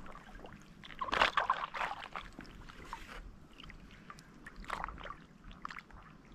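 Irregular splashing and sloshing of water with small knocks, loudest about a second in and again near five seconds.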